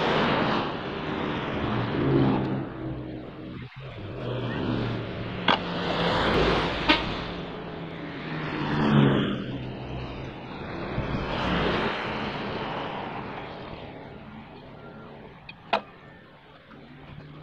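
Road traffic passing close by: several vehicles in turn, each swelling and fading over a second or two, with a low engine hum under them. A few sharp clicks stand out, the loudest about a second before the end.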